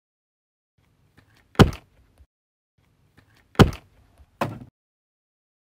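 Three punch-impact sound effects: a hard hit about a second and a half in, another about two seconds later, and a third, slightly softer one with a low tail under a second after that.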